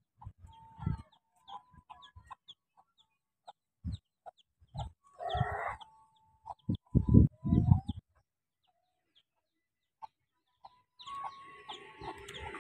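Chickens clucking in short, scattered bursts, with a few low thumps in between. Near the end a motorcycle engine grows louder as it comes closer.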